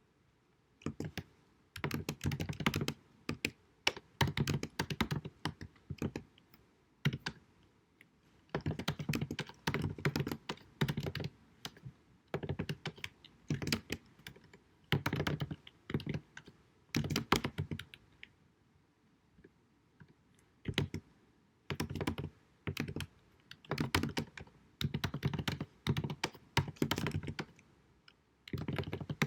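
Computer keyboard typing in bursts of rapid key clicks with short pauses between them, recorded in low quality.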